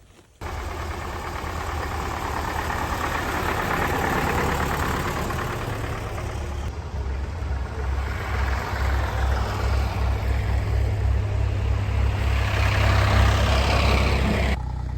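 Engine running with a low, uneven throb. It cuts in abruptly about half a second in and stops abruptly near the end.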